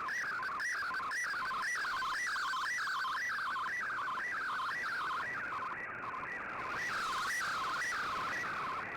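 Slow-scan television (SSTV) image signal received over shortwave radio: a warbling tone sweeping up and down between about 1 and 2 kHz, about two sweeps a second, over a hiss of static. Each sweep is one scan line of a picture being sent.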